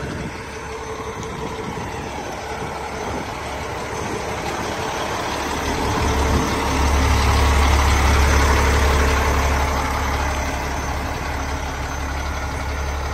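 Heavy diesel truck engine idling with a steady low rumble, growing louder for a few seconds about halfway through and then easing off a little.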